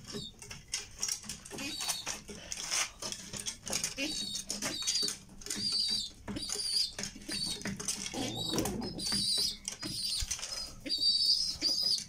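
Domestic pigeons feeding at a wooden trough of grain: quick pecking taps on seed and wood, wings flapping now and then, with short high chirps throughout.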